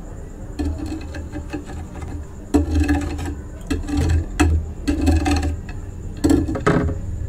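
Raw aloe vera leaf handled close to the microphone, giving a series of sharp, irregular crunches and clicks, thickest in the second half, over a steady low hum.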